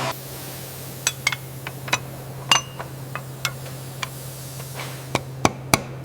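A series of sharp metallic clicks and clinks, some with a brief ring, irregular at first and coming faster, about three a second, near the end, over a steady low hum.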